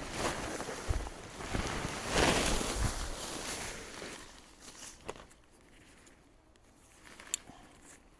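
Footsteps with rustling through forest ground cover: a few heavy steps roughly every half second or so, loudest about two seconds in. It then fades to a quieter stretch with a few faint clicks.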